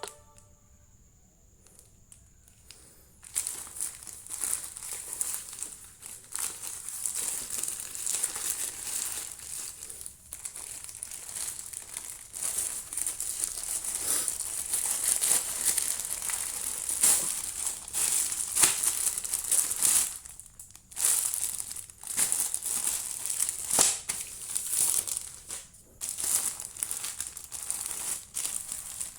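Packaging crinkling and rustling as it is handled and opened, starting about three seconds in and going on in irregular crackles with a few brief pauses.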